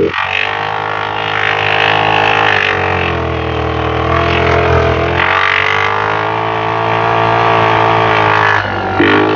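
2022 Kawasaki KFX 50 youth ATV engine running during a test ride, a steady drone whose pitch steps up and down several times with the throttle.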